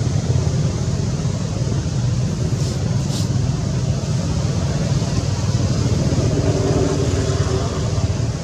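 Steady low rumbling background noise, with two short high chirps about three seconds in.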